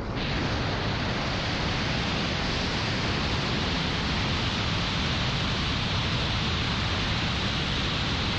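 A loud, steady rushing noise that starts suddenly and holds unchanged throughout.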